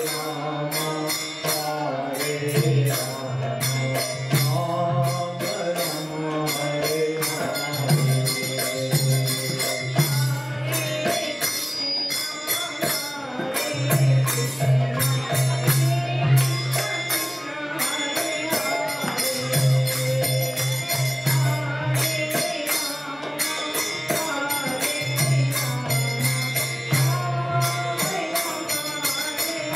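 Devotional kirtan: a woman's voice leads a sung chant over a harmonium drone, with a mridanga drum and small hand cymbals keeping a steady, fast rhythm.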